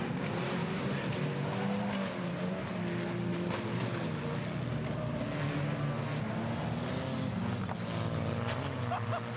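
Engines of several banger racing cars running and revving together as the pack jostles on the track, their pitch rising and falling, with a few sharp knocks in the second half.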